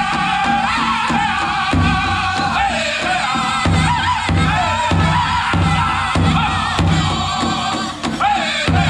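A powwow drum group sings together in high, wavering voices over a steady unison beat on a large powwow drum, playing a chicken dance song. The beat breaks off briefly about eight seconds in.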